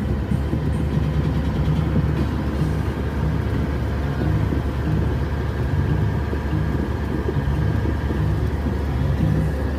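Steady low rumble with no distinct knocks or changes.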